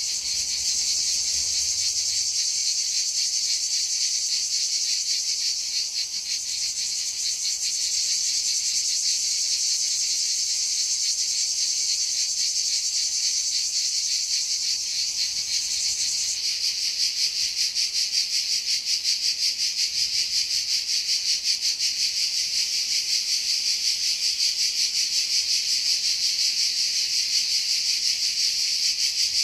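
Insects chirring in a loud, steady, high-pitched chorus. A fast pulsing runs through it, stronger from about halfway through.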